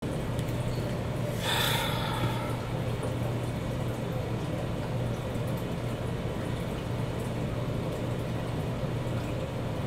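Steady room noise with a constant low hum, and one brief breathy hiss about a second and a half in.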